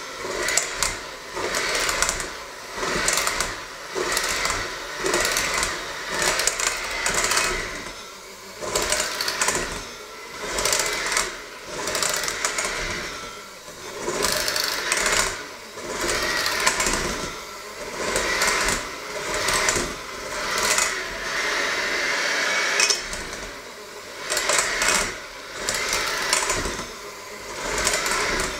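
Electric hand mixer running with its dough hooks in a stainless steel bowl, kneading a flour dough. The motor whir rises and falls every second or two.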